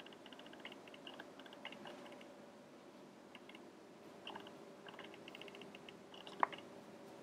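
Faint, quick clicks in short irregular runs, with one sharper tap about six and a half seconds in.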